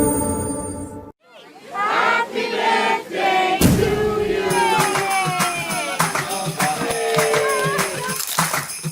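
Background music fades out, then after a brief gap more music starts with voices singing over it.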